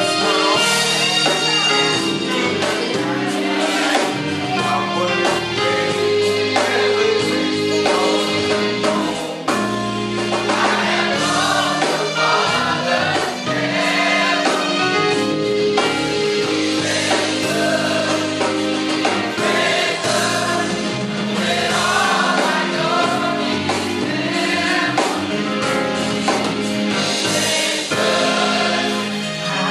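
Gospel choir singing with musical accompaniment.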